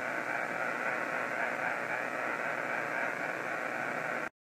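Steady harsh static from a Kenwood HF transceiver's speaker tuned to AM at 10.195 MHz: power line noise swamping the band. The audio cuts out briefly near the end.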